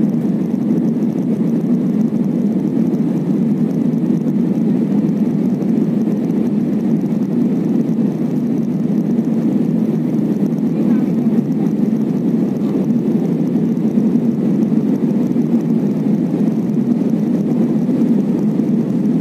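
Jet airliner cabin noise in flight: the steady low rumble of the engines and airflow heard from a passenger seat, holding level with no changes.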